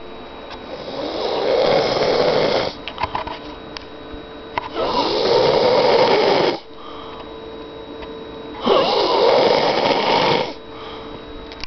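A woman snoring loudly: three long snores, each lasting about two seconds and coming about every four seconds, with quieter breathing between them.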